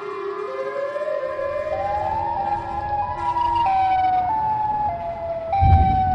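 Siren wail sound effect used as the call of the Siren Head creatures: its pitch climbs gradually, then alternates between two tones from about the middle. A low rumble joins near the end.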